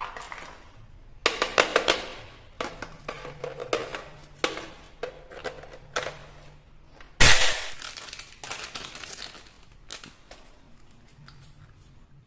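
Plastic toys clicking and clattering in quick runs of sharp clicks, with one loud sharp crack about seven seconds in.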